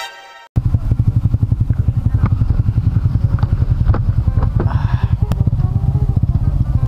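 Motorcycle engine running at low speed close to the microphone, a steady rapid low throb that cuts in abruptly about half a second in.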